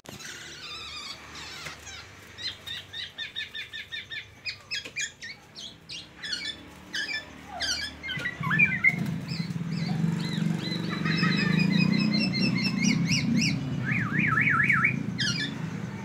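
Caged black-naped oriole singing runs of quick repeated notes and trills, a song stocked with phrases copied from the white-rumped shama. A low background rumble joins about halfway through.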